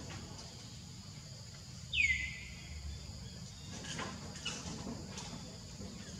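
A single high animal call about two seconds in that drops sharply in pitch and then holds steady for about a second, over a faint, steady high insect drone.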